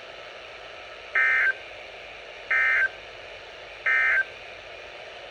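NOAA Weather Radio SAME end-of-message code: three short, identical digital data bursts about a second and a half apart, marking the end of the severe thunderstorm warning. A steady faint radio hiss runs beneath them.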